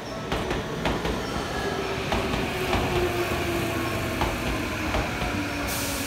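Tokyu Oimachi Line electric train passing over a level crossing, its wheels knocking in irregular clacks over the rail joints, with a low hum that slowly falls in pitch. A hiss starts near the end.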